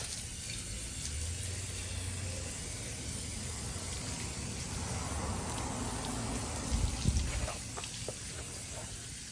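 Garden hose spray nozzle spraying water onto a scooter's rear wheel and bodywork: a steady hiss of spray with splashing, broken by a few low bumps about seven seconds in.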